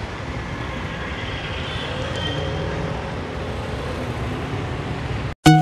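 Steady outdoor background noise, like road traffic, that cuts off suddenly near the end as music with plucked notes begins.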